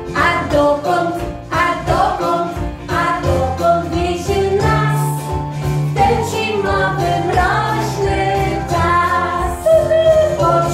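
Children's song: singing over an instrumental backing track with a steady bass line.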